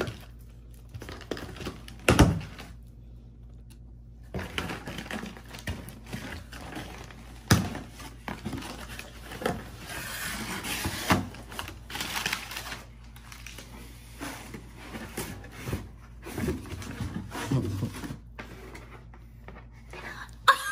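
Cardboard boxes being opened by hand: flaps and cardboard knocking and scraping, with crinkling and tearing of packing paper as it is pulled out of a shoe box. Sharp knocks come about 2 s and 7.5 s in, and the paper rustling is heaviest around the middle.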